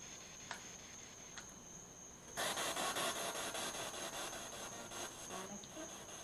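Spirit box radio scanner sweeping through stations: choppy static with a steady high whine and an even, rapid chop. About two seconds in it jumps sharply louder for a few seconds, then eases back.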